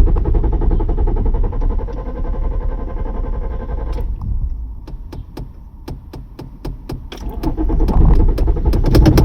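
A car's starter cranks the engine, which turns over in even pulses without catching, and stops after about four seconds. A string of sharp clicks follows, then the cranking starts again near the end.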